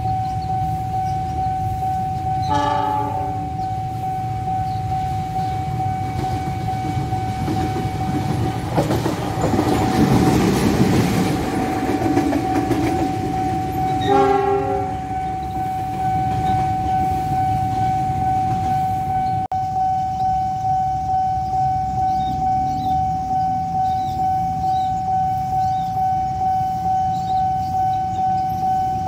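Level-crossing warning alarm sounding steadily, with a diesel locomotive's horn blowing short blasts about two and a half seconds in and again around fourteen seconds. A passing train rumbles loudly for a few seconds in between, and the alarm pulses evenly towards the end.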